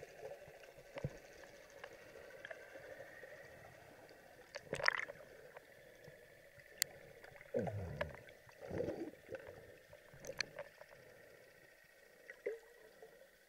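Muffled water sound picked up by a submerged camera: a faint steady hiss with scattered sharp clicks and knocks, and a few gurgling swishes of water about eight seconds in.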